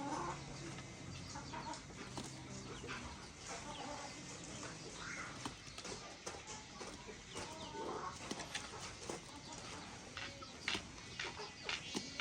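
Chickens clucking on and off, with a few sharp clicks or knocks near the end.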